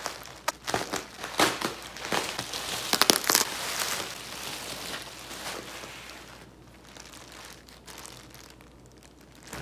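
Plastic bubble wrap crinkling and crackling as it is cut open with scissors and pulled off, a dense run of sharp crackles in the first four seconds, loudest about three seconds in. After that it settles into softer plastic rustling.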